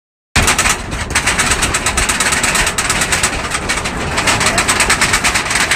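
Roller coaster train running on its track: a loud, fast, steady clatter over a rushing noise, starting suddenly about a third of a second in.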